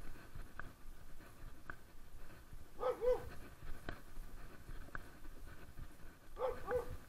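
A dog giving two short pairs of yelping, whine-like calls, about three seconds in and again near the end, with faint clicks in between.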